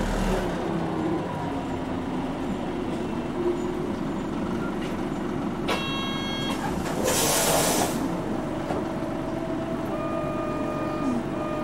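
Nissan Diesel Space Runner city bus heard from inside, its diesel engine and road noise running steadily. About six seconds in there is a short electronic chime, followed at once by a burst of compressed-air hiss from the bus's air system lasting about a second.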